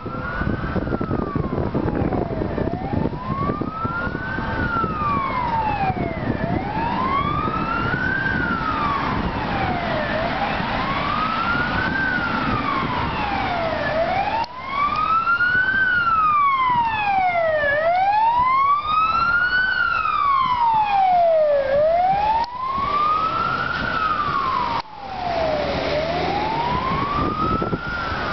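An emergency vehicle siren wailing, rising and falling slowly about once every four seconds, over steady city traffic noise. Around the middle a second, higher wailing tone joins in for a few seconds.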